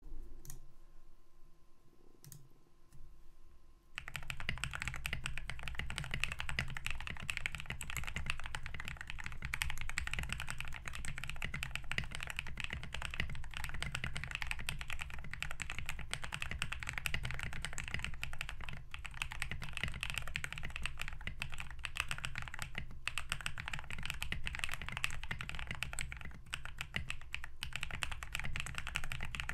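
Fast, continuous typing on a custom gasket-mounted mechanical keyboard with a POM plate and lubed Blackberry Boba switches (Boba top, Cherry Hyperglide bottom, Gazzew LT stem) in a foam-dampened aluminium-and-brass case. A couple of single key presses come first, and the steady typing starts about four seconds in.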